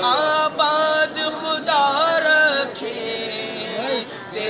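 Male voice singing a Sufi devotional song in praise of Khwaja Moinuddin Chishti (Gharib Nawaz), drawing out long held notes that bend up and down in pitch between the lines of the refrain.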